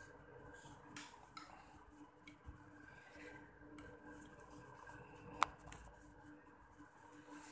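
Quiet room tone with a faint steady hum, broken by a few small clicks, the sharpest about five and a half seconds in.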